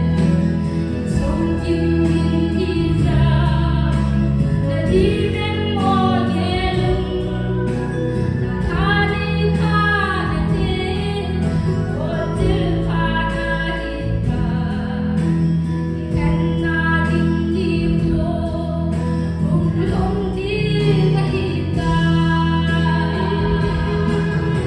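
A woman singing a gospel song into a handheld microphone, amplified, over a steady instrumental backing with sustained bass notes.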